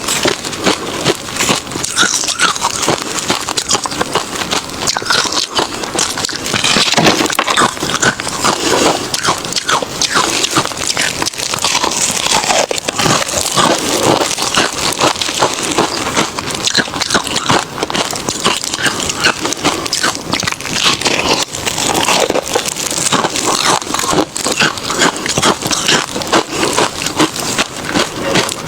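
Close-up crunching of refrozen crushed ice being bitten and chewed, a dense run of sharp cracks and crackles without pause.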